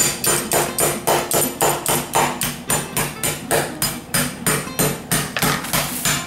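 Rapid, even pounding of a metal spoon on a zip-top bag of Oreo cookies lying on a stone countertop, crushing them into crumbs, about four strikes a second.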